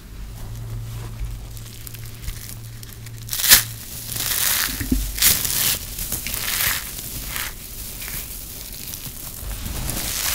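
Hands crushing balls of crispy grated soap: crisp crunching and crumbling of the dry soap flakes. A sharp, loud crunch comes about three and a half seconds in, followed by a run of crunches, then softer rustling of the crumbs.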